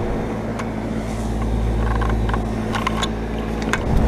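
Nordyne heat pump outdoor unit running: a steady hum from the compressor with fan noise and a low rumble, broken by a few light clicks about half a second in and around three seconds in.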